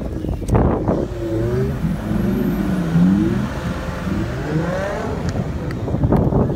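Car engine revving up and down as the car is drifted on snow, its pitch rising and falling several times over steady road noise, with a couple of sharp knocks near the start and end.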